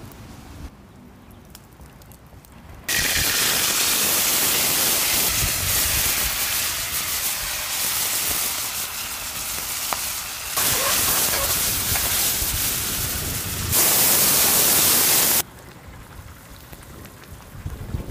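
Dried chillies, star anise and cinnamon frying in hot oil in a wok: a loud, steady sizzle that starts abruptly about three seconds in and cuts off a few seconds before the end, jumping in level twice along the way. Before and after it there is only a quiet low rumble.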